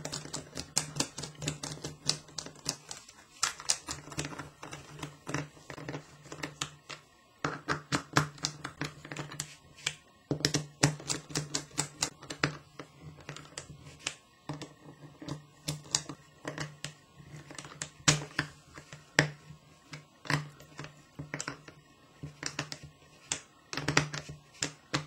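Screws being driven to fasten the front cover of a shower valve: a long run of irregular clicks and ticks from the tool and parts, over a low steady hum that drops out twice early on.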